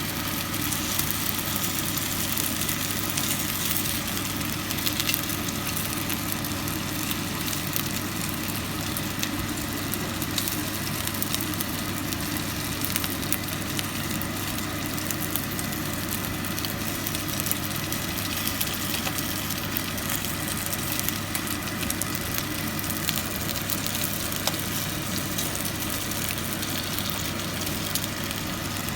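Chicken drumsticks frying in hot oil: a steady sizzle with fine crackles, over a low steady hum.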